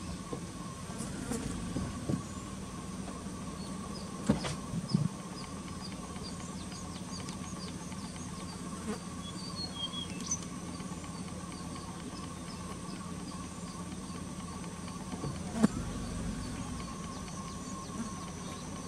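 Steady background hum with faint, high, short chirps repeating throughout, and a few sharp clicks about four, five and fifteen seconds in.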